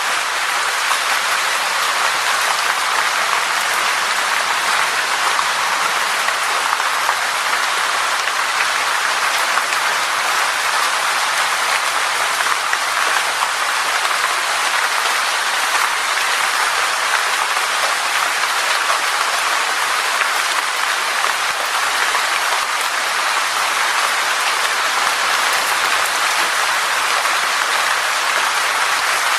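Steady rain: a dense, even hiss of many drops falling on a surface, holding level throughout.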